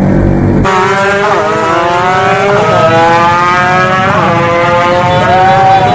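Tuned two-stroke drag motorcycles running flat out, their engine pitch climbing and dropping back sharply at each gear change, about three times. Less than a second in, a deeper, muffled engine sound cuts off abruptly as the racing bikes come in.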